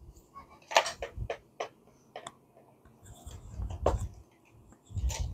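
Handling noise from unpacking an aluminium carry case of scanner gear: a series of separate sharp clicks and taps, with dull low thumps a little past halfway and again near the end as the case and its contents are moved and set down.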